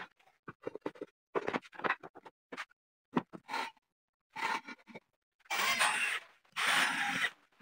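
Short knocks and scrapes of a board being set onto and slid along steel angle-iron rails, then a cordless drill driving a screw, running twice for under a second each near the end.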